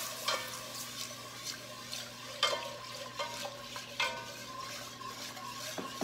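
Milk pouring from a plastic gallon jug into an enamelled Dutch oven while a wire whisk stirs it into a butter-and-flour roux for a white sauce. The whisk makes irregular clicks and scrapes against the pot about once a second.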